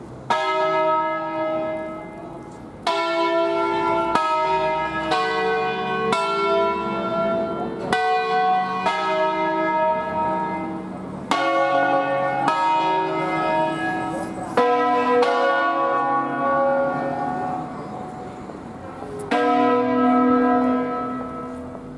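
A five-bell peal of Barigozzi-cast church bells in the key of B, swung full circle by rope in the Ambrosian system. The bells strike one after another at uneven intervals, about a dozen strokes in all, each note ringing on with long overtones.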